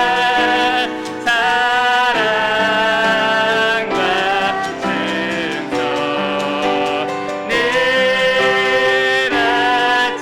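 Praise-team worship song: singing voices holding long notes over piano.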